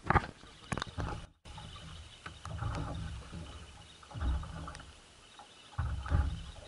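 Outdoor sound on a small boat at sea: irregular low gusts of wind on the microphone over a faint hiss of water, with a few sharp knocks near the start.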